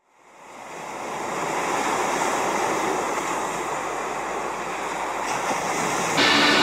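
Ocean surf washing onto a shore, a steady rush that fades in over the first second or two. Near the end, band music with guitar comes in suddenly.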